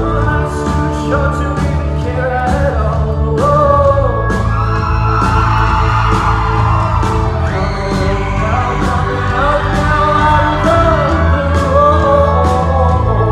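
Live rock song played by a band, with a male lead singer over a steady drum beat.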